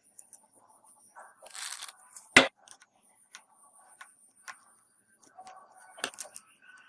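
Small tools and parts handled on a smartphone under repair: a short scraping rasp about a second and a half in, then a sharp click, followed by scattered light taps and another click near the end.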